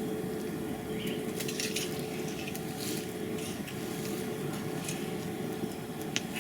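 Potato harvesting by hand: scattered soft knocks and rustles of potatoes and soil being handled, over a steady low background hum.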